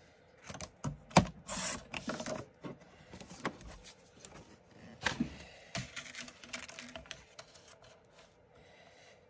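Sliding-blade paper trimmer cutting cardstock: a sharp click about a second in and a short scraping slide of the blade, then scattered taps and rustles of paper and the trimmer being handled and set down.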